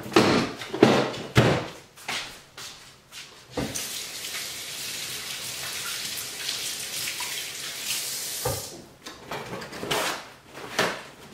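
Kitchen tap running for about five seconds, starting about three and a half seconds in, as hands are rinsed under it. Short knocks and clatter come before and after, and paper towel is pulled off the roll near the end.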